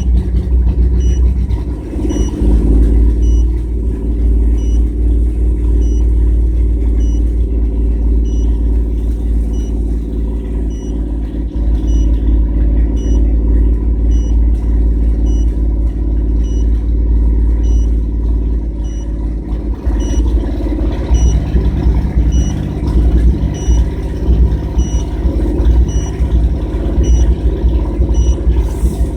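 1997 GMC Jimmy's 4.3 L V6 running steadily at about 2,000 rpm with a misfire, its note changing about twenty seconds in. A faint high beep repeats a little more than once a second.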